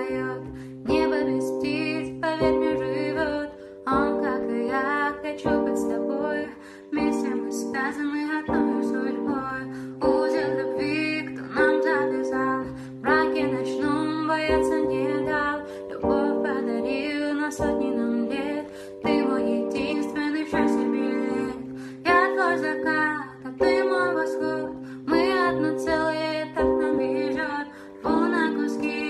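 A song: a strummed string instrument playing chords in a steady rhythm, with a singing voice over it.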